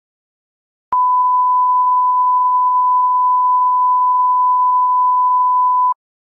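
A 1 kHz line-up tone under a broadcast countdown clock: one loud, steady pure tone that starts with a click about a second in and cuts off sharply after about five seconds.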